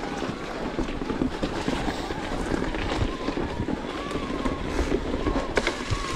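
Electric mountain bike riding fast down a rough dirt and gravel trail: tyres rolling and crunching over stones, the bike rattling, with wind noise on the microphone. A faint wavering whine comes in about halfway, and there is a sharp knock near the end.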